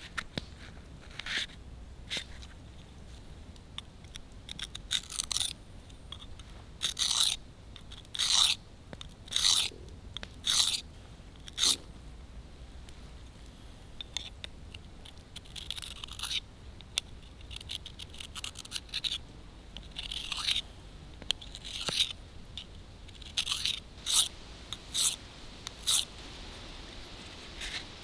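Fixed-blade knife being sharpened on a small hand-held sharpening plate from a wallet sharpener: a series of short scraping strokes, some single and some in quick pairs, with a pause a little before the middle.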